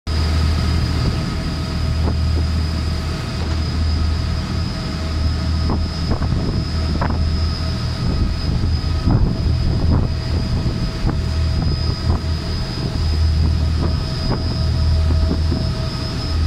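Small boat's engine running steadily under way, a loud low drone with a thin steady high whine over it. Wind buffets the microphone.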